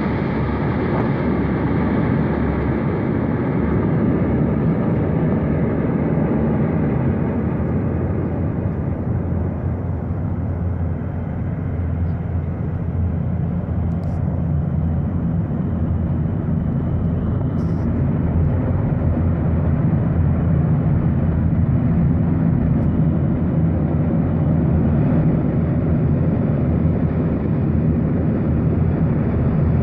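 Antonov An-22's four NK-12 turboprop engines with eight-bladed contra-rotating propellers running on the ground: a loud, steady, deep drone with several low tones, dipping slightly partway through.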